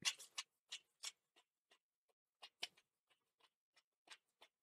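Goulash faintly crackling and spitting in a cast-iron pot as the buttermilk and meat juices cook down, with irregular small pops and a louder cluster of pops right at the start.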